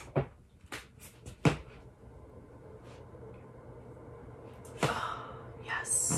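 A small portable space heater knocks several times as it is handled and set down on the floor, then its fan starts a steady whir about two seconds in. Two brief rustles come near the end.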